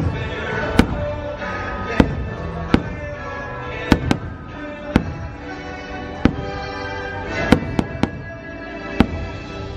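Aerial fireworks bursting, about a dozen sharp reports at irregular intervals roughly a second apart, over the fireworks show's music.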